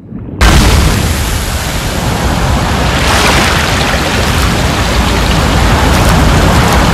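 Loud rush of a big gush of water bursting up and spraying, starting abruptly about half a second in and holding steady.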